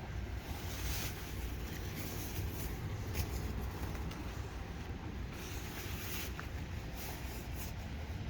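A few faint rustles and clicks of guitar packaging being handled, over a steady low outdoor rumble.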